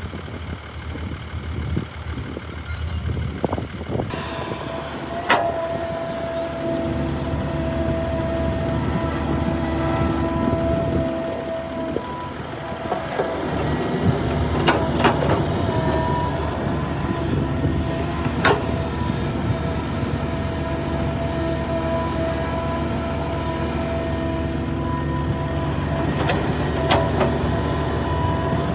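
Hitachi ZAXIS 350H excavator and dump truck diesel engines running steadily under load, with a steady whine over the engine. Sharp metallic clanks come about five times: once early, a pair in the middle, one more, and a pair near the end.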